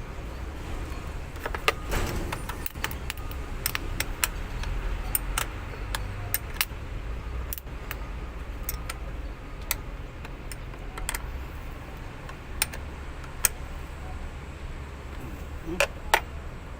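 Sharp metallic clicks and clinks at irregular intervals from metal tools and terminal hardware (nuts, washers, clamps) handled while new battery terminals are fitted, over a steady low rumble.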